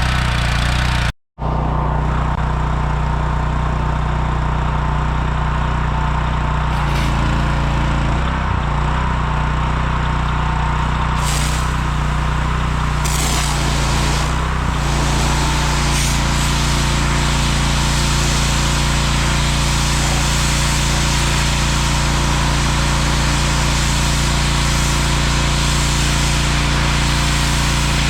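Single-cylinder Honda GX390 engine on a 3700 psi pressure washer running steadily, with a steady hiss over its note. The sound cuts out completely for a moment about a second in.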